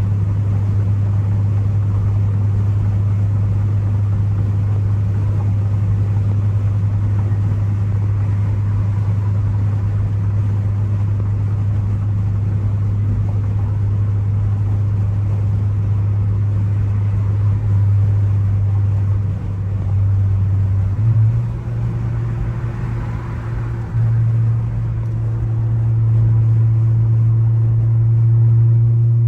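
Ford Focus ST's tuned turbocharged four-cylinder engine droning steadily at a cruise. The note shifts and dips a few times about two-thirds of the way through, then climbs slowly as the car speeds up near the end.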